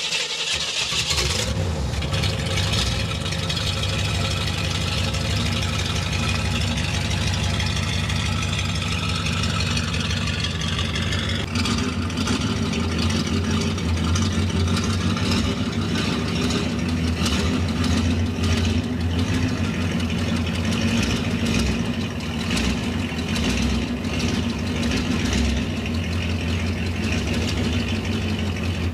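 1982 Jeep J20 pickup's engine, just started, running steadily with a low drone. About eleven seconds in the drone steps up louder and deeper and holds there.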